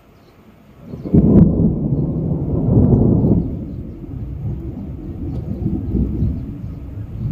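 Thunder: a sudden low rumble breaks in about a second in, is loudest for the next two seconds or so, then rolls on more softly and swells again near the end.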